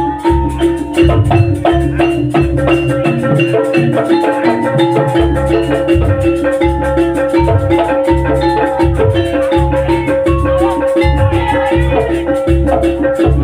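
Background music with a marimba-like mallet melody over a steady, pulsing bass beat.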